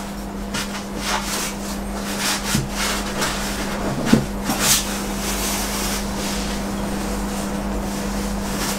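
Rustling and light knocks of packaging and parts being handled, with a sharper knock about four seconds in, over a steady low hum.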